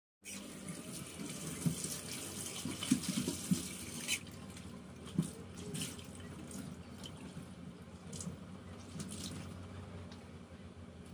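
Water running and splashing into a stainless steel kitchen sink as a washcloth is rinsed under the tap and wrung out. The splashing is heaviest in the first few seconds, then settles into a steadier, quieter trickle.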